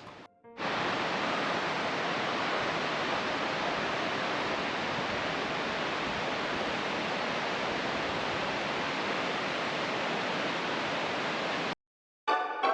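Steady rushing of water in a mountain gorge stream, a continuous even roar that cuts off abruptly about a second before the end.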